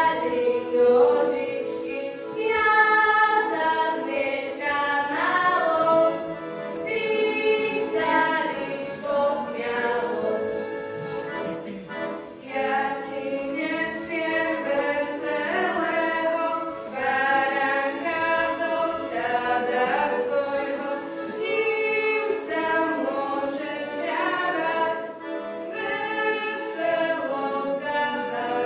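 Choir of women and girls singing together.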